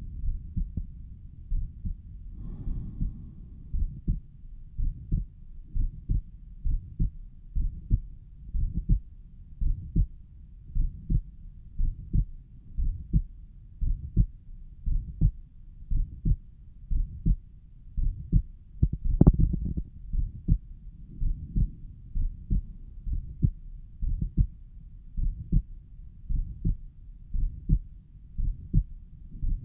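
Human heartbeat heard at the pulmonic valve area: a steady run of low thumps about once a second, with a low whooshing between them that the recorder takes for a mid-systolic murmur. A sharper, louder knock comes a little past halfway.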